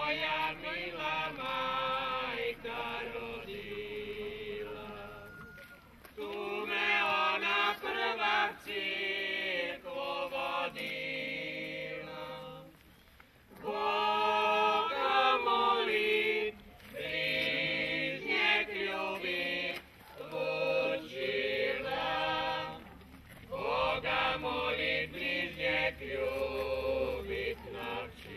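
A group of children's voices singing a Croatian folk song together without instruments, in phrases of a few seconds with short breaks between them.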